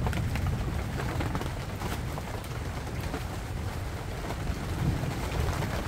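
Wind rumbling on the microphone, with a faint hiss and a few faint scattered clicks.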